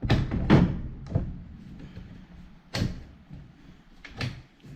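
A handful of hard, irregularly spaced knocks and clunks as the homemade aluminium Packout rack is handled and seated on the snowmobile. The first clunks and one near the middle are the loudest.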